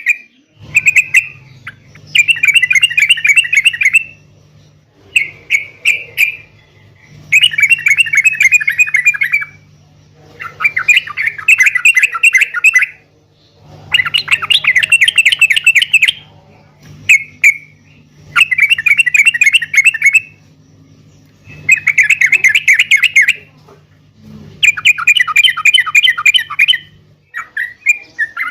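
Yellow-vented bulbul singing a fast, bubbling chatter in repeated phrases of one to two seconds each, with short pauses between. A steady low hum runs underneath until near the end.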